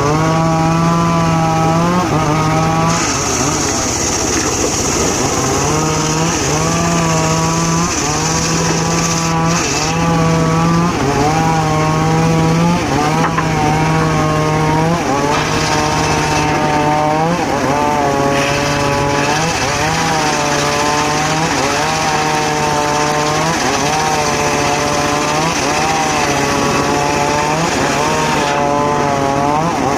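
Mobile circular sawmill cutting teak wood. The saw runs continuously, its pitch dipping and recovering about every second and a half.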